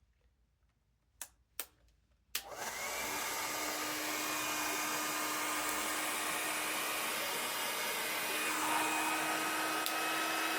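Two short clicks, then a 1875-watt handheld hair dryer switches on about two and a half seconds in and runs with a steady rushing blow and a faint hum, shifting slightly in tone near the end.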